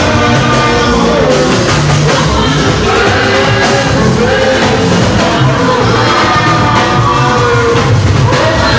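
Live gospel praise music: singers on microphones over a drum kit and an electronic keyboard, playing loud and without a break.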